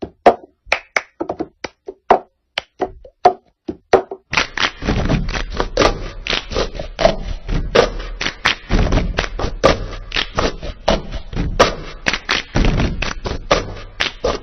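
The cup-game rhythm without singing: hand claps and cups rapped and slapped down on a tabletop. The strikes come singly at first, then from about four seconds in they turn dense, fast and louder.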